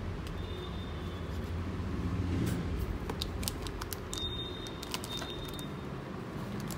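A steady low background rumble, with a few light clicks and rattles about halfway through as cardboard gift boxes holding metal elephant figurines are handled.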